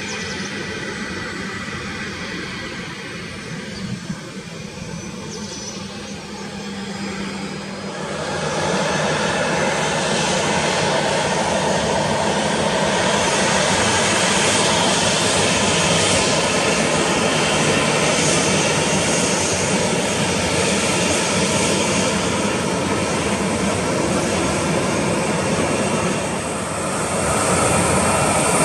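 Airliner's engines at takeoff power during a takeoff, a steady loud rushing noise that jumps louder about eight seconds in and stays loud, dipping briefly near the end before swelling again.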